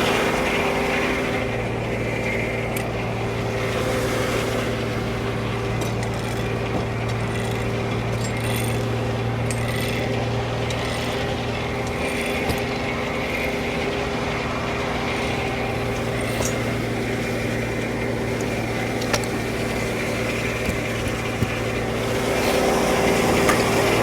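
Frick No. 1 sawmill running steadily: a constant mechanical hum from its drive, with scattered light clicks and ticks.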